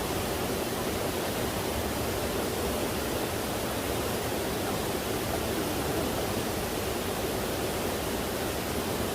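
Steady rushing noise without any pitch, even and unchanging throughout.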